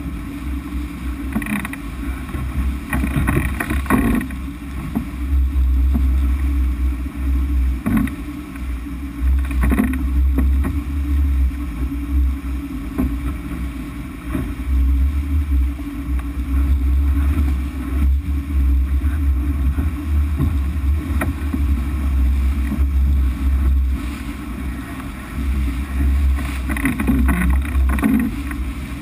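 Low, gusting rumble of wind and water rushing past a sport boat sailing fast, with spray hissing along the hull and a few sharp knocks and splashes.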